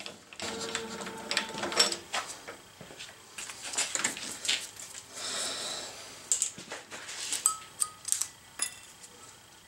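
Aluminum chips being swept off a steel milling vise and workpiece with a paintbrush: irregular light clinks, rustles and short scrapes, with a few sharper clicks in the second half.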